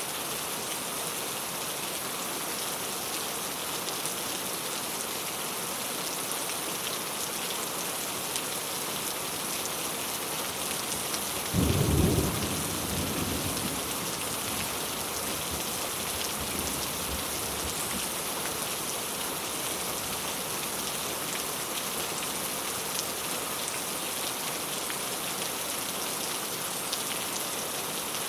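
Steady rain falling on a clay tile roof. About halfway through, a single thunderclap booms, then rumbles away over a few seconds.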